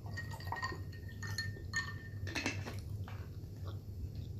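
Peach iced tea poured from a bottle into a glass, with several light clinks and a brief ringing of glass.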